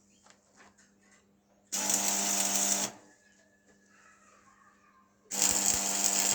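An electric metalworking tool running in two short bursts, each about a second long, a steady buzz that starts and stops abruptly, with faint clicks and handling noise between them.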